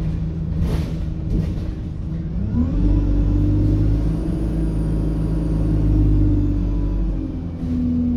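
ADL Enviro 200 bus's engine cooling fan cutting in about two and a half seconds in with a rising whine, then running with a loud, hoover-like rush over the running diesel engine before winding down about seven seconds in.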